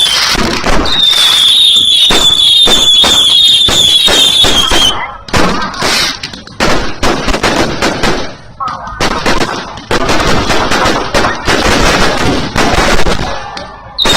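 Fireworks and firecrackers going off in a dense run of sharp cracks and bangs. For the first few seconds a high, slightly falling whistle repeats about twice a second over the bangs.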